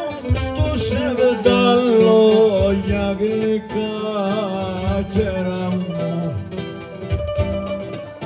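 Cretan folk music: a melody with sliding, bending notes, most likely the Cretan lyra, over plucked laouto and mandolin accompaniment.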